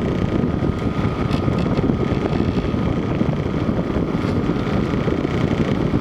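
LG LW6016R 6000 BTU window air conditioner running in cooling mode, with its compressor and fan going as a steady blowing hum and a faint steady high tone. The compressor has kicked in, and the unit is blowing cold air.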